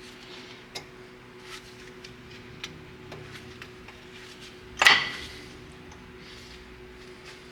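Metal tools and brake parts being handled: light scattered clicks and taps, then one sharp metallic clank with a short ring about five seconds in. A faint steady hum runs underneath.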